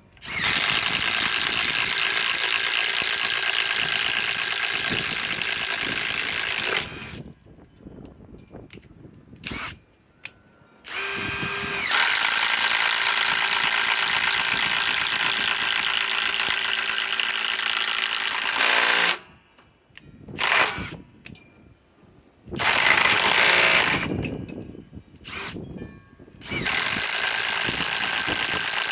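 Master Force Boost cordless impact driver running hard under load in several long bursts of several seconds each, with short pauses between them. It spins up with a rising whine about eleven seconds in.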